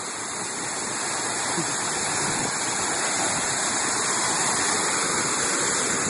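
Small mountain waterfall heard at close range: water splashing down a rock face in a steady rush that swells a little over the first few seconds.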